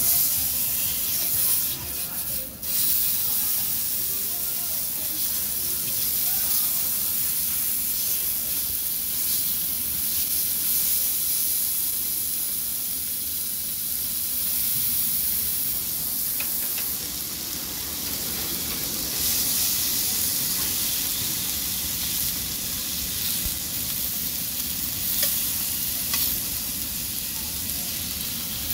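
Red-marinated meat and pork belly sizzling on a hot tabletop Korean barbecue grill plate: a steady high hiss of frying.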